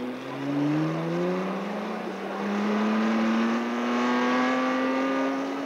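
Small gasoline engines of Grand Prix Raceway ride cars accelerating. Several engine tones overlap and climb steadily in pitch over the whole stretch.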